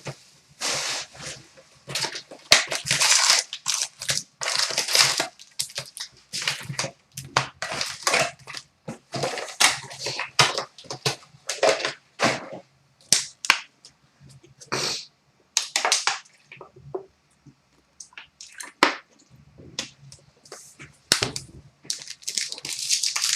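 Card box packaging and wrapped card packs being torn open and handled: an irregular run of crinkling, ripping and rustling of plastic wrap, foil and cardboard.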